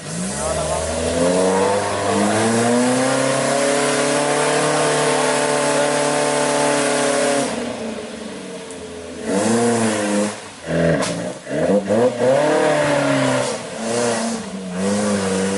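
Off-road jeep engine revving up and held at high revs for about five seconds, then dropping away; after a short lull it revs again in several quick bursts that rise and fall, as the jeep works through deep mud.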